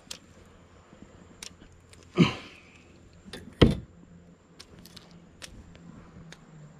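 Fishing rod and reel handled in a small boat: scattered light clicks and ticks, with two louder knocks, about two seconds and three and a half seconds in.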